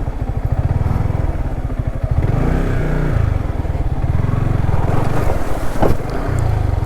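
Motorcycle engine running under changing throttle on a rough off-road track, its note rising and falling, with a sharp knock about six seconds in.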